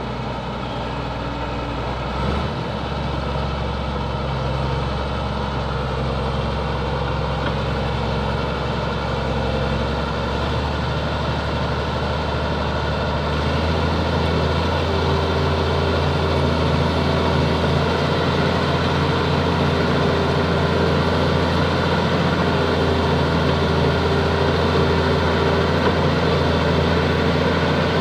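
Bulldozer's diesel engine running steadily at a constant pitch, a little louder from about halfway through.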